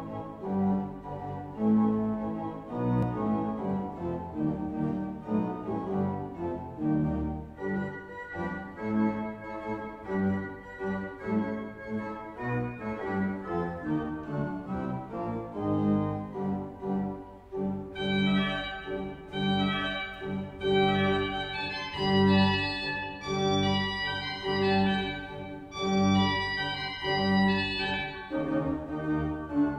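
Church pipe organ playing slow sustained chords and melody; from about eighteen seconds in the sound turns brighter, with higher notes moving over steady low notes.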